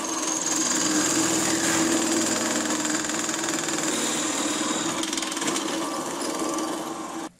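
Drill press motor running while a large boring bit cuts into a thick wooden disc: a steady hum under a rough cutting noise and a high whine. It cuts off suddenly near the end.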